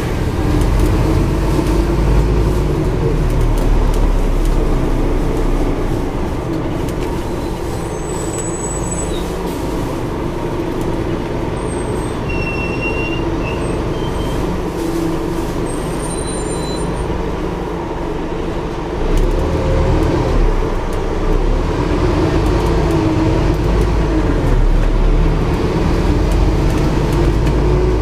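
A Scania N230UD double-decker bus's five-cylinder diesel engine running, heard from the upper deck with road noise. The engine quietens for a stretch mid-way, with a few brief high squeaks, then picks up again about two-thirds of the way through.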